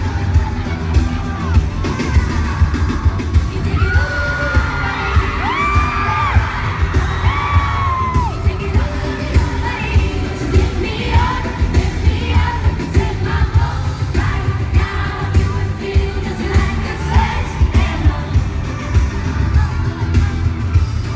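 Live pop music heard from the audience at a concert: a girl group's voices singing over a steady, heavy drum beat through the PA.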